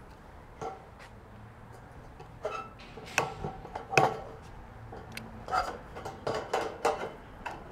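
Tin snips cutting sheet-steel barge capping flashing: a string of sharp metallic snips, about eight, irregularly spaced and louder from about two and a half seconds in.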